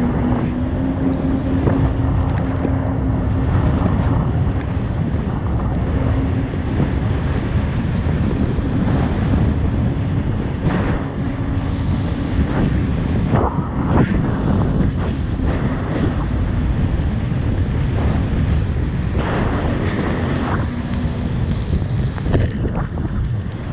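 Jet ski engine running at a steady pitch, with wind buffeting the microphone and water splashing now and then.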